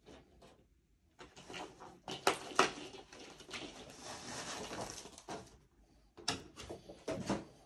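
Packaging of a Pokémon trading card collection box being handled and opened: rustling and scraping, with sharp knocks about two seconds in and a few more near the end.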